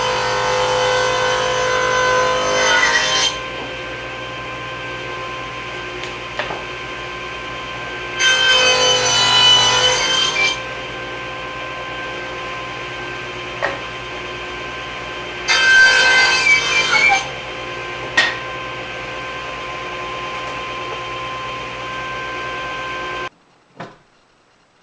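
Table saw running steadily and cutting three thin wooden strips for homemade biscuits. Each cut lasts two to three seconds and is louder than the idle hum. The saw sound stops abruptly near the end.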